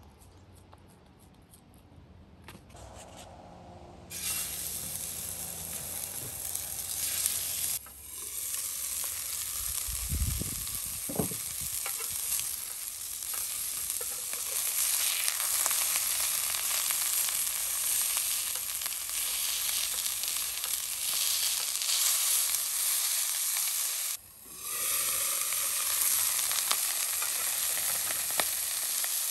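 Hamburger patties sizzling in a hot cast-iron skillet. The sizzle starts suddenly about four seconds in and runs steadily after that, with a couple of low thumps about ten seconds in.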